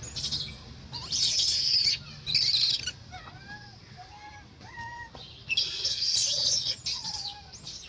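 Baby macaque crying to nurse: three loud, shrill screams about a second in, midway through the first half and past the middle, with short arched whimpers between them.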